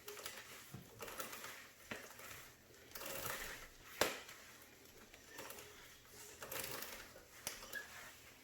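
Cleaning a motorcycle rear wheel rim: scrubbing and wiping noises in several short bursts, with one sharp click about four seconds in.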